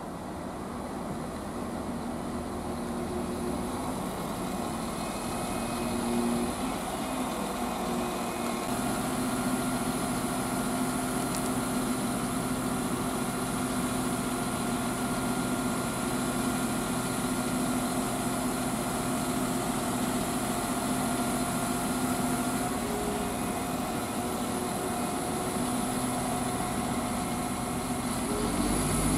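Northern Ireland Railways Class 4000 diesel multiple unit drawing into the platform and standing with its underfloor diesel engines idling: a steady hum with a thin high whine. Just before the end the engines rise in level as the train starts to pull away.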